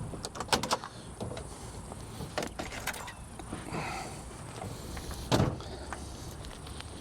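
A car's fold-down rear seat panels being handled: several sharp latch clicks and knocks, with one heavier thump about five seconds in.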